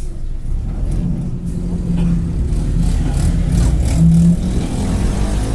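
Mercedes-Benz OF-1721 bus's diesel engine running under way, growing gradually louder, with the growl of a worn bearing (rolamento roncando).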